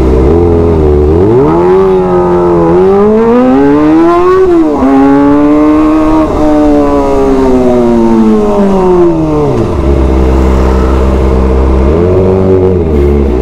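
Kawasaki ZX25R's 249 cc inline-four on an SC Project titanium exhaust, very loud: it pulls up from idle through two upshifts, then the revs wind steadily back down to idle, with a short throttle blip near the end.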